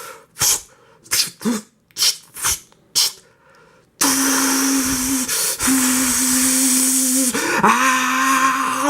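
A person imitating a Gatling gun with the mouth. First come about six short, separate hissing bursts, then a brief pause, then a continuous rapid-fire hissing buzz with a steady hummed note underneath.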